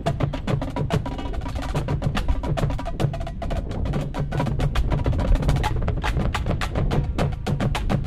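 Marching band percussion section, drumline and front ensemble, playing a fast passage of rapid, sharp strikes over sustained low notes.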